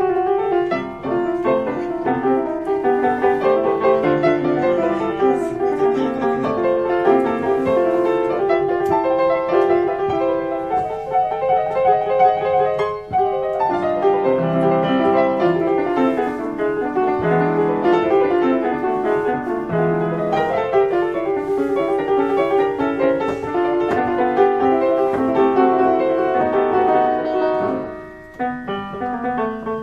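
1872 Rittmüller upright piano being played: a continuous flowing passage of many notes, with a brief break about thirteen seconds in and a quieter stretch near the end.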